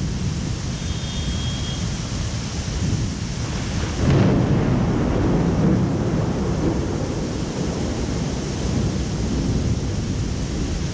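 Thunder rumbling over the steady hiss of rain; about four seconds in a louder peal breaks in and rolls on, fading slowly.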